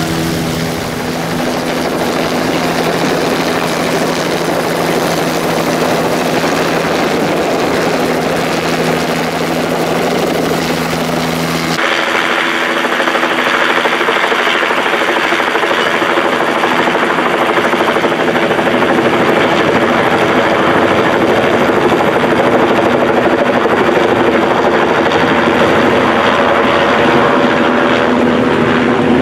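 Loud, steady helicopter engine and rotor noise, which changes abruptly in character about twelve seconds in.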